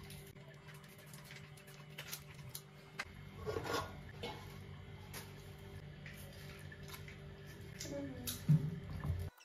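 Hands cleaning raw squid in a stainless steel sink: soft wet squishing and rubbing with scattered small clicks of plastic bowls being set down, over a steady low hum. A louder thump comes near the end.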